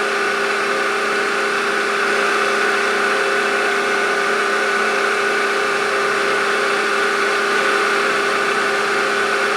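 A machine-tool spindle and its electric motor running steadily at high speed: a constant mechanical whine with a few steady tones over an even hum.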